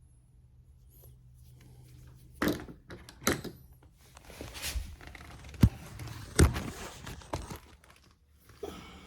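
Handling noises as a tool is fetched and picked up: a few sharp knocks and thuds, with rustling in between.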